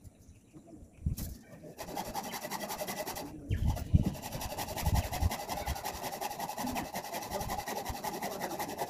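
Steady rasping of work on the steel sliding gate, starting about two seconds in, with a few low thumps around the middle.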